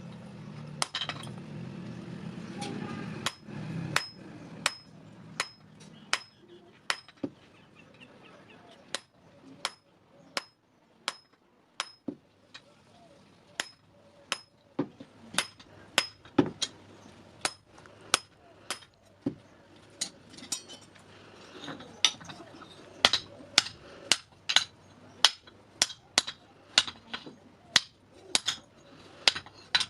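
Hand hammer striking steel on an anvil in a steady series of sharp metallic blows, some with a high ring, about one and a half a second. The blows come faster and harder in the last third, as in forging a scissor blade.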